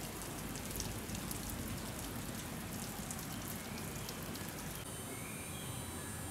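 Steady rain with scattered drop ticks. About five seconds in it gives way abruptly to a steadier background hiss with a faint high whine.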